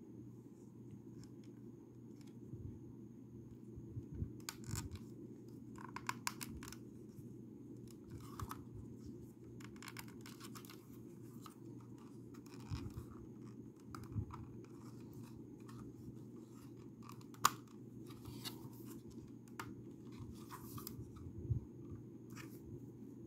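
Lego bricks being handled and pressed together: irregular small clicks and scratchy plastic rustles, one sharper click in the second half, over a steady low hum.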